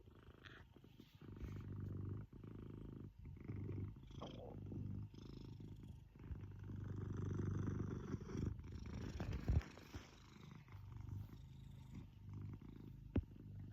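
Domestic cat purring close up, a low rumbling purr in long stretches broken by short pauses, with a sharp click near the end.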